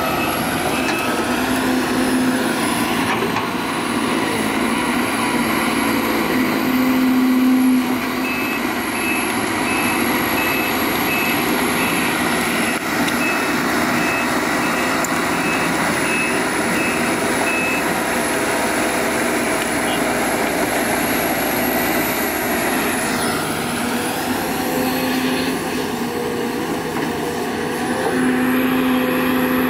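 Sumitomo SH210 hydraulic excavator's diesel engine and hydraulics working at a digging site alongside dump trucks, a steady heavy-machine drone with a high whine that rises and falls. A reversing alarm beeps evenly, about twice a second, briefly at the start and again for about ten seconds in the first half.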